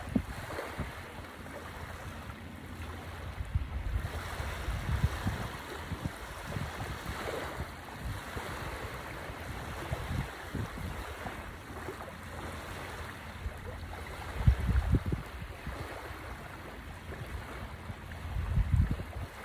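Small waves lapping and breaking on a sandy shore, with wind buffeting the microphone in low rumbling gusts, the strongest about fifteen seconds in and again near the end.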